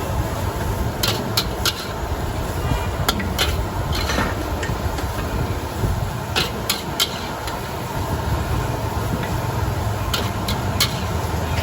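Metal cooking utensil clanking against a pan in sharp, irregular strikes, typical of stir-frying noodles at a street stall. A steady low rumble of traffic runs underneath.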